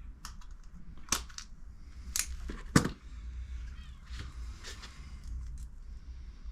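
A screwdriver clicking and scraping against the old metal washer on a motorcycle's sump drain plug as it is pried at, in several sharp clicks, the loudest a little before three seconds in; the washer is stuck and won't come off.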